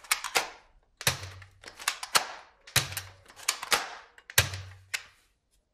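Plastic toy dart blaster being handled and worked: about a dozen sharp plastic clicks and clacks, several in quick pairs, some with a dull knock, stopping about a second before the end.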